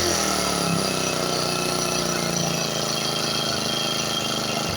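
Four-stroke grass cutter engine running steadily at an even speed.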